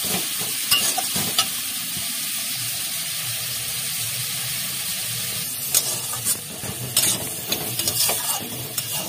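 Cauliflower filling sizzling in a pan on the stove while a utensil stirs it. A steady sizzle runs under scattered scrapes and knocks against the pan, which come thick and fast from about halfway in.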